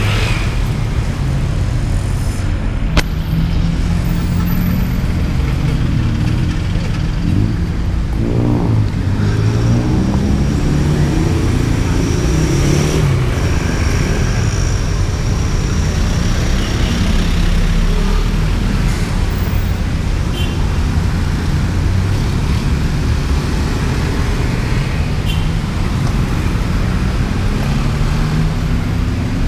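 Busy city street traffic: cars, taxis and motorbikes driving past close by, their engines running steadily. A passing engine rises and falls in pitch about eight seconds in, and there is a single sharp click about three seconds in.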